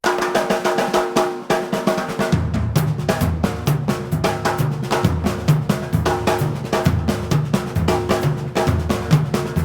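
Music: a band track driven by a drum kit, snare and bass drum, over sustained pitched notes, with a bass line coming in about two seconds in.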